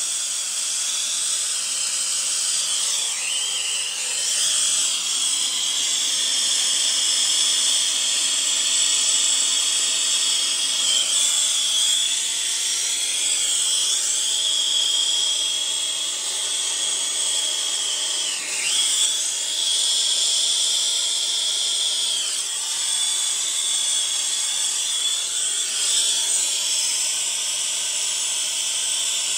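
Handheld gas soldering torch flame hissing steadily as it heats a fluxed copper pipe joint on a ball valve, wavering briefly a couple of times.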